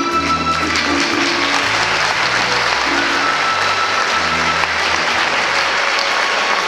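Audience applauding over dance music with a low, repeating bass line. The music drops away about five seconds in while the clapping goes on.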